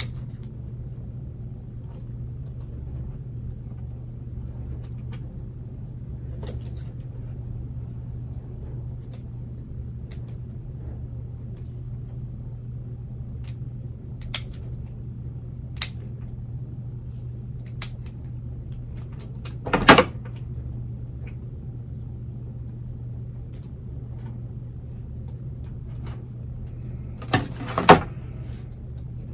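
Hand pruning shears snipping through orchid roots caught in a basket pot: scattered sharp clicks, with louder clacks about twenty seconds in and near the end, over a steady low hum.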